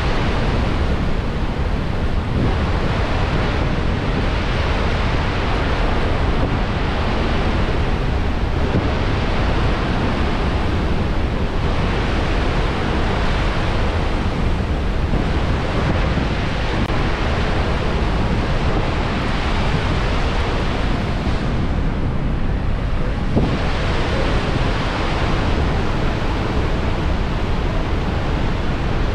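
Horseshoe Falls at Niagara heard from close below: the steady, deep rush of a huge volume of water plunging into the river, loud and unbroken.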